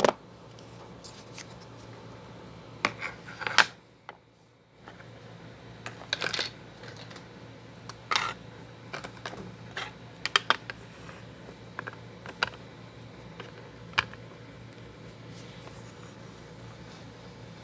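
Scattered clicks and knocks of small plastic toys and toy furniture being handled and moved about, with handling noise on the recording phone: about a dozen sharp taps spread irregularly, over a low steady hum.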